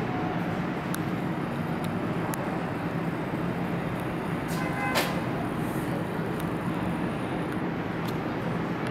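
Steady rumble and hum of a subway station and tunnel as a departing R142A train runs off into the tunnel, with one sharp clank about five seconds in.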